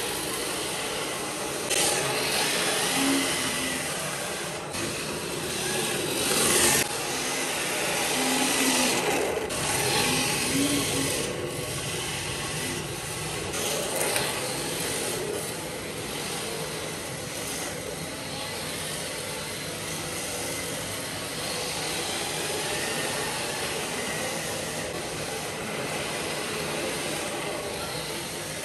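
Radio-controlled scale drift car sliding around the track, its tyres scrubbing the surface in a steady rasping hiss that swells louder a few times as the car passes close.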